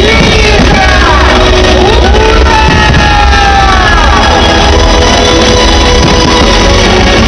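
Loud rock-style music with a singing voice, steady throughout, with no distinct firework bursts standing out.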